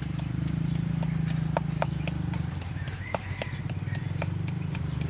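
Wooden pestle pounding in a wooden mortar: sharp hollow knocks at an uneven pace, about two a second, as ingredients are crushed. A steady low hum runs underneath.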